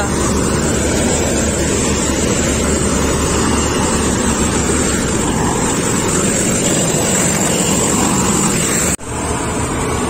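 Combine harvester with a maize header running and cutting standing corn: a steady, loud machine noise with a low rumble. It breaks off sharply about nine seconds in.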